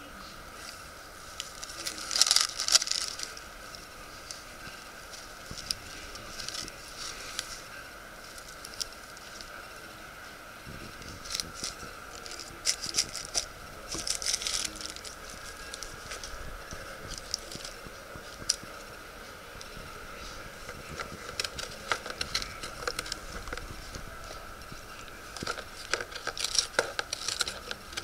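Tissue paper in a shoebox rustling and crinkling in irregular bursts as a cat rummages through it, loudest about two seconds in and again near the end. A steady faint high tone runs underneath.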